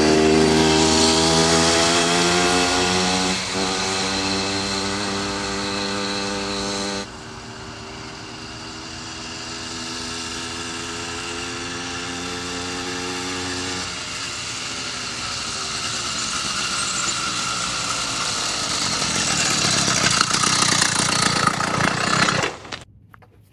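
80cc two-stroke motorized bicycle engine running as the bike passes by. It gets louder and rises in pitch at first, then about seven seconds in it drops sharply in level and its pitch slowly falls. It grows louder and rougher again before cutting off abruptly near the end.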